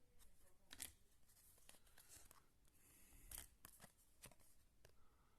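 Faint scattered clicks and short rustles of trading cards and their plastic pack wrapper being handled.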